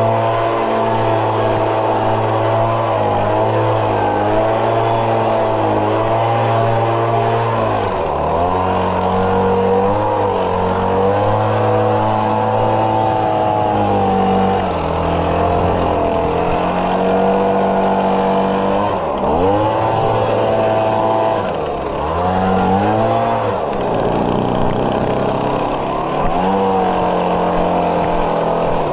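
Small lawn-equipment engine running at high speed, its pitch dropping sharply and climbing back several times, most deeply about twenty and twenty-two seconds in, as the throttle or load changes.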